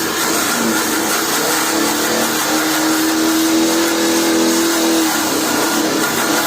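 A steady machine noise: a loud, even hiss with a humming whine that holds strongest from about two seconds in and fades about five seconds in.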